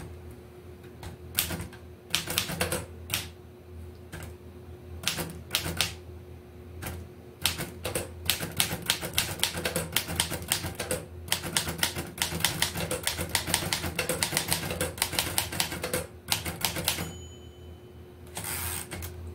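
1928 Royal Model P manual portable typewriter being typed on, its keys striking in separate clacks that start scattered and then, about seven seconds in, quicken into a fast run of strokes. Near the end there is a longer rasping sound.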